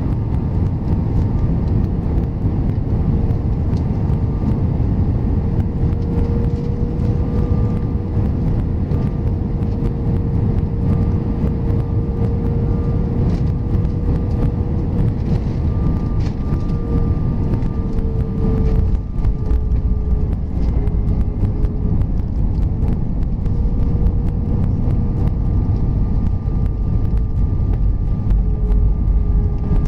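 Airbus A320 cabin noise at a window seat on final approach and landing: steady engine and airflow noise with a steady hum. About two-thirds of the way through, the sound dips briefly and turns rougher with rattles and clicks as the jet touches down. A deeper rumble builds near the end as it rolls out on the runway with its spoilers up.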